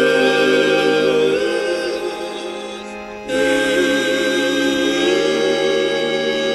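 Background music of slow, sustained chords. The level sags about two seconds in and a new chord comes in just after three seconds.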